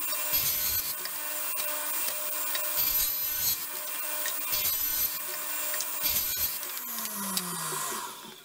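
Table saw running and ripping quarter-inch MDF into thin strips, with a high whine and several short louder stretches as the blade cuts. Near the end the saw is switched off and spins down, its pitch falling away.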